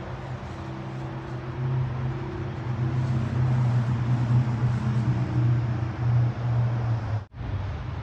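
Road traffic: a passing vehicle's engine drones low and steady, growing louder over several seconds. The sound cuts out abruptly for a moment about seven seconds in.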